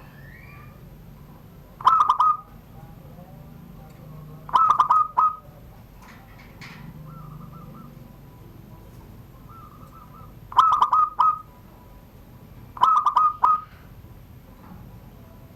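Zebra dove (perkutut) cooing in the song style that fanciers call surung gdor: four loud bursts of rapid rolling coos, each about half a second to a second long. Fainter coos sound in the gaps between them.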